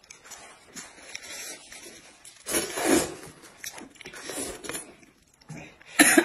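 People eating noodles: short bursts of slurping and chewing, loudest just at the end.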